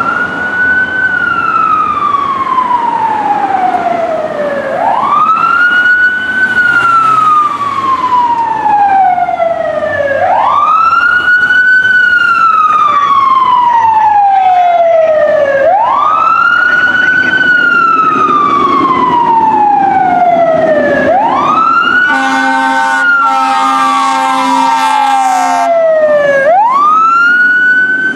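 Fire engine siren wailing in long cycles, each sweeping up quickly and then falling slowly over about five seconds. About 22 seconds in, the engine's air horn sounds one steady blare for about three and a half seconds over the siren.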